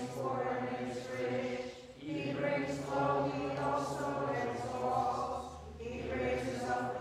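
Voices singing Byzantine liturgical chant unaccompanied, in long held phrases with brief breaks about two seconds in and again near six seconds.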